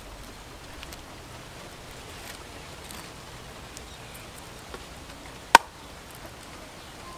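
A single sharp chop of a knife through fish onto a wooden cutting board about five and a half seconds in, over a faint steady outdoor background.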